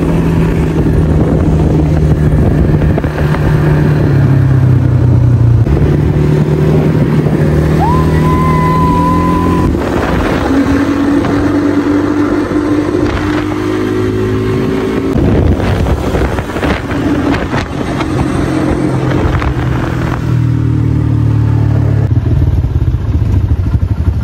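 ATV engine running under way, its pitch stepping up and down as the speed changes, with wind rushing over the microphone.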